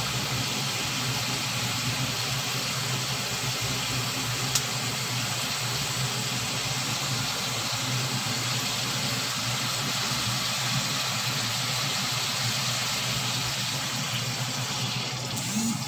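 Steady hiss and low hum of a pot of pork ribs cooking on a lit gas stove burner. Near the end Sprite is poured from the bottle over the meat.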